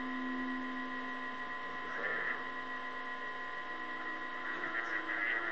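Baby monitor speaker giving a steady electronic hum of several held tones, broken by short warbling chirps about two seconds in and again near the end: unexplained noises picked up by the monitor that sound a lot like someone speaking.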